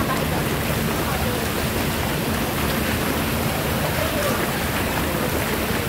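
Water-massage jets in a hydrotherapy pool churning the water, a steady bubbling, rushing water noise.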